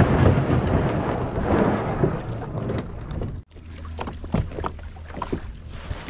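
Plastic kayak hull grinding and scraping over shore gravel as it is pushed into the water. After a sudden break a little past halfway come scattered knocks and scrapes as the paddler climbs aboard and pushes off the bank with the paddle.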